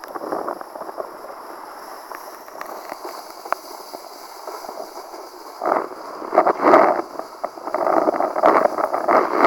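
Rushing wind and water noise from a kitesurfer riding fast across choppy water, with scattered faint ticks. It grows louder and gustier about six seconds in.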